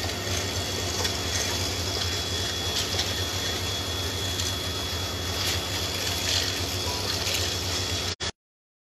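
Steady rushing background noise with a low hum underneath, cutting off abruptly into silence about eight seconds in.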